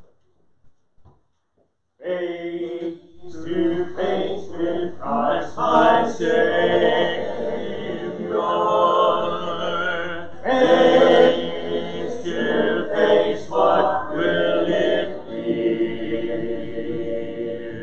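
Church congregation singing a hymn a cappella, many voices together without instruments, starting after a short silence about two seconds in.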